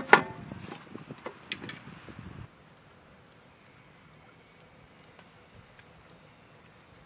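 A metal lid clangs down onto a large steel cooking pot with a brief ringing, followed by a couple of seconds of lighter clattering. After that the sound cuts off suddenly to a faint steady hiss.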